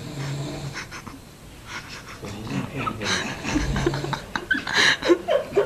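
A mobile phone's vibration motor buzzing against a sleeping man's face, in two short spells, with loud snoring breaths.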